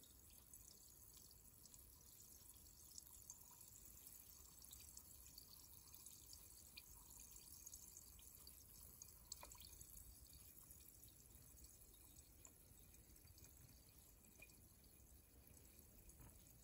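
Faint fizzing of a carbonated drink in a glass: a steady scatter of tiny bubble pops and ticks, one a little louder about nine seconds in.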